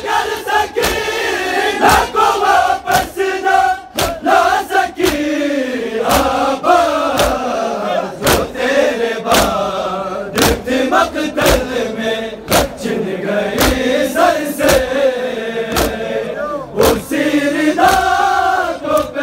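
A large crowd of men chanting a noha in unison, with sharp hand-on-chest slaps of matam about once a second.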